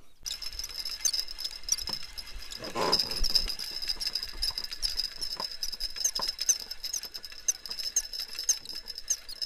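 Spinning fishing reel being cranked to retrieve line, giving a steady high whine with a regular tick about twice a second. A short rustle comes about three seconds in.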